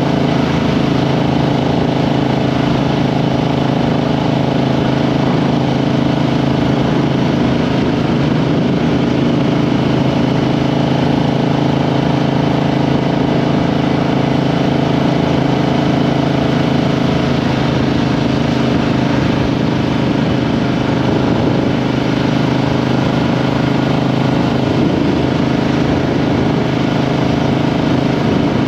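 Triumph Street Twin's 900 cc parallel-twin engine running at a fairly steady engine speed during a ride, picked up close by a microphone under the seat.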